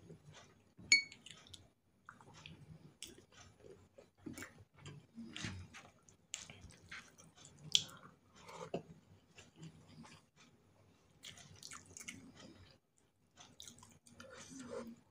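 A person chewing and biting into chicken rendang and rice eaten by hand, close to the microphone: irregular short clicks and mouth smacks, with one sharp click about a second in.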